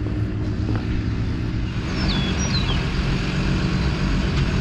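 Engine of a small single-axle dump truck running with a steady low drone. A few short high chirps from a small bird come about two seconds in.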